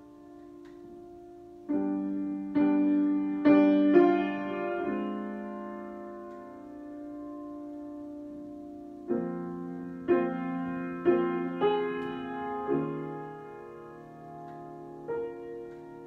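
Grand piano played solo in a slow improvisation: a group of chords struck close together, a long stretch where they ring and die away, then a second group of chords, and one more near the end.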